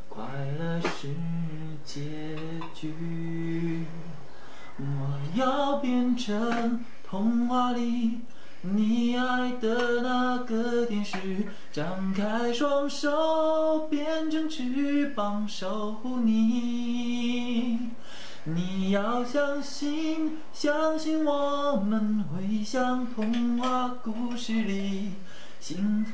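A man singing a slow love song, holding long, drawn-out notes.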